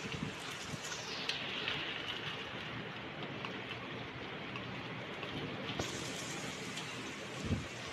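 Steady rain falling, an even hiss with scattered drip ticks, and a brief low thump near the end.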